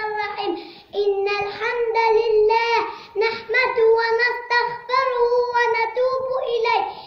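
A young boy's high voice singing a chant-like melody in long, held notes, with short pauses for breath about a second in and about three seconds in.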